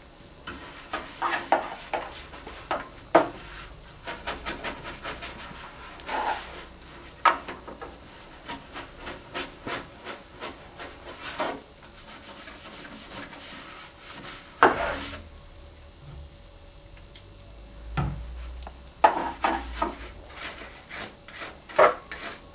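Damp computer cleaning brush scrubbing a desktop PC's plastic and metal case in runs of quick back-and-forth strokes, with a few sharper knocks of the brush against the case.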